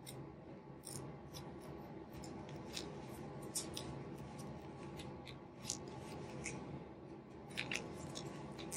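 Wooden knitting needles clicking faintly against each other and against an adjustable metal thimble ring as stitches are worked, about ten short irregular clicks over a low steady hum.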